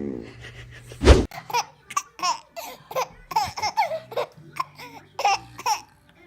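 A baby laughing in a run of short, repeated peals, about two a second, after one short, loud, low burst about a second in.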